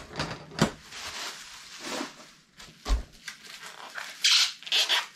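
Plastic packaging and bubble wrap crinkling and rustling in the hands as a small item is unwrapped, in irregular bursts with the loudest crinkles about four seconds in, and a soft thump about three seconds in.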